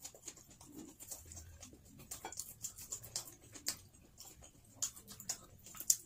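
Close-up eating sounds: a person chewing and handling food with her fingers, giving scattered, irregular soft clicks and lip smacks.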